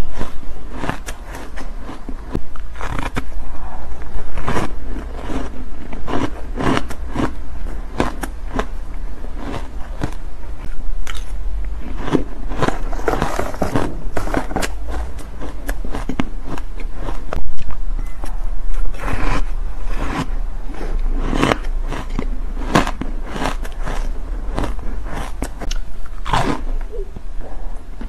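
Soft, crumbly ice being bitten and crunched close to a clip-on microphone, in dense irregular crackles, with a metal spoon scraping and scooping in a plastic tub. A steady low hum runs underneath.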